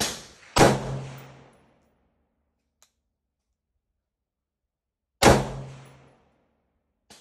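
AR-15 rifle fitted with a Precision Armament Hypertap muzzle brake firing: a shot right at the start, a louder one just over half a second later, and another about five seconds in, each with a ringing tail that dies away within about a second. A faint click near the end.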